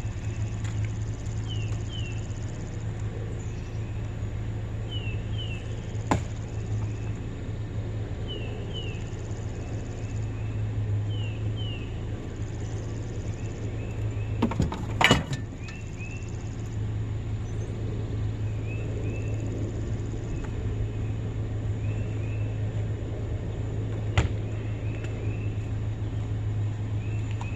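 Vehicle running with a steady low hum, with a few sharp knocks, the loudest about halfway through, and short high chirps in pairs every few seconds.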